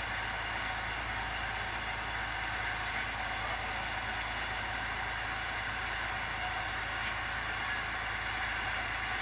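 A boat's engine running steadily under an even, constant hiss.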